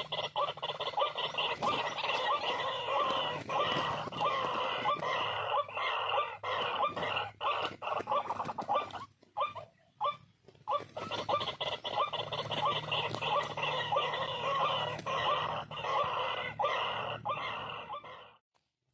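White-breasted waterhen calling: a fast, unbroken run of harsh repeated notes, breaking off about nine seconds in, starting again a second or so later, and cutting off suddenly shortly before the end.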